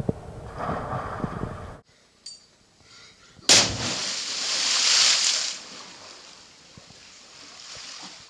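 A person jumping into a deep rock pool: a sharp, loud smack as the body hits the water, then a hiss of spray and splashing that swells for a second or so and dies away.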